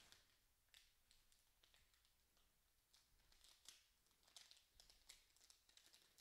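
Faint, scattered crinkling and rustling of a foil trading-card pack wrapper being peeled open by hand.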